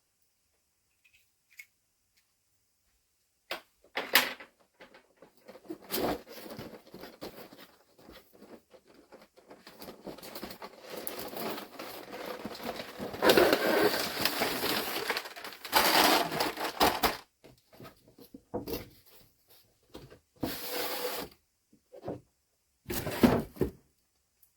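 Cardboard toy packaging being handled and opened. Scattered taps and clicks come first, then several seconds of scraping and rustling, then more knocks near the end.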